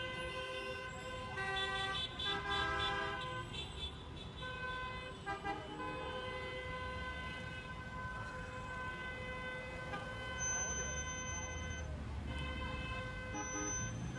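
Several car horns sounding together in long, steady, overlapping tones over the low rumble of traffic.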